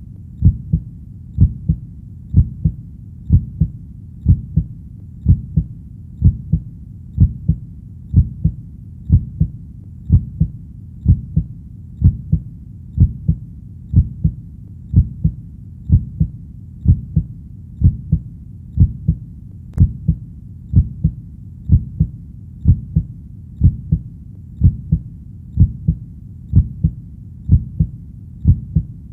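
Heartbeat: steady deep lub-dub double thumps, about one beat a second, over a faint steady background rumble.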